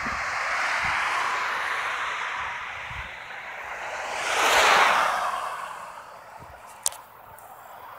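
Road traffic passing close by: the rush of tyres and engines swells and fades. The loudest car sweeps past about halfway through, and its sound drops in pitch as it goes. A brief sharp click comes near the end.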